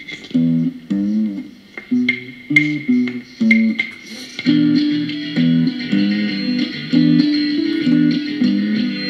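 Instrumental music led by guitar, playing a riff of short repeated chords about two a second, with a bass line under it. About halfway through, a fuller, sustained layer of higher notes joins in.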